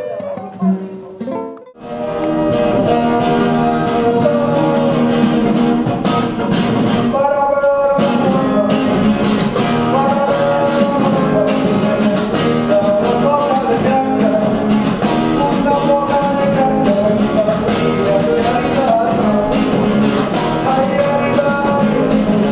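Song with singing over a strummed acoustic guitar, cutting in abruptly about two seconds in.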